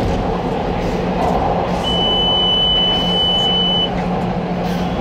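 CTA rapid transit train running through a subway tunnel, a steady loud rumble of wheels and motors. About two seconds in, a single high-pitched electronic beep sounds for about two seconds.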